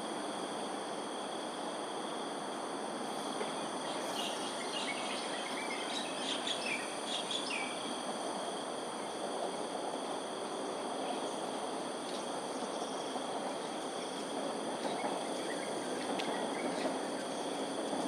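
Steady chorus of insects, crickets or similar, holding several continuous high-pitched tones over a steady background of environmental noise. A few short bird chirps come through about four to eight seconds in and again near the end.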